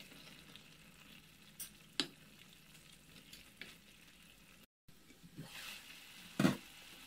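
Sliced champignon mushrooms sizzling quietly in their juice in a frying pan while a wooden spatula stirs them, with a couple of sharp knocks against the pan about two seconds in. A louder knock comes near the end.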